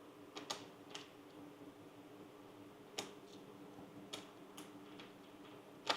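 Scattered light clicks and taps from hands-on work on a road bike, about eight in six seconds, the sharpest one near the end, over a faint steady hum.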